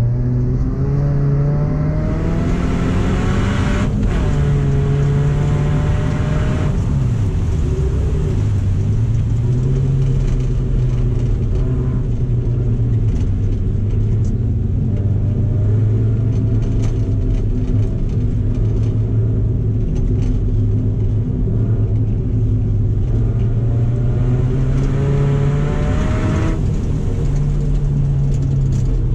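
2007 Subaru Impreza's flat-four boxer engine revving under racing load. Its pitch climbs as the car accelerates, drops sharply when it lifts or shifts, and runs steadier in between.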